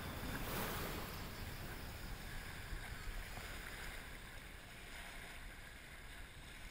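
Wind rumbling on the microphone over small waves washing onto a sandy shore, the whole sound gradually fading.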